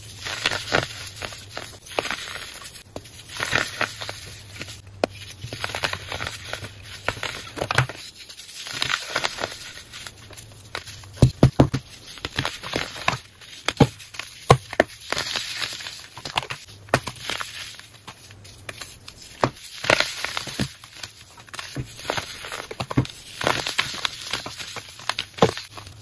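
Blocks of baking soda being crushed and crumbled between the fingers: continuous crisp crunching and crackling, with a run of louder cracks about eleven seconds in.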